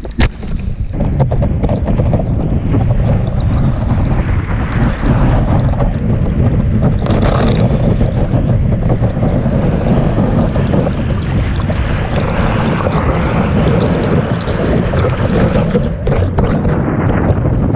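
Wind buffeting the microphone of a board-mounted action camera, over rushing, splashing water as a kiteboard planes across the surface. There is a short sharp knock right at the start.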